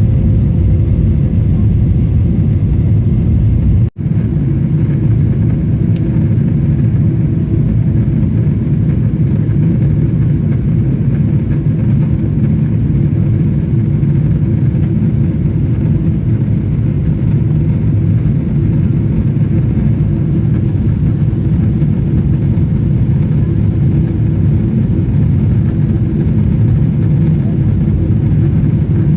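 Steady loud rumble inside the economy cabin of a Boeing 777-300ER during departure: engine noise and airflow, with a faint steady hum. The sound cuts out for an instant about four seconds in.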